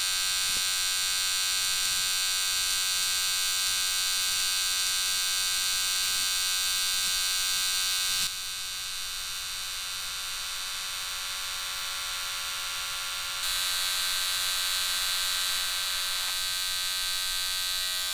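Electric beard trimmer buzzing steadily. About eight seconds in it turns quieter and duller, returns louder about five seconds later, and cuts off suddenly at the end.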